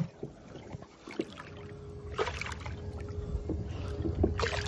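Water sloshing and lapping against the side of a small boat, with a few light splashes and knocks, a low rumble, and a faint steady hum.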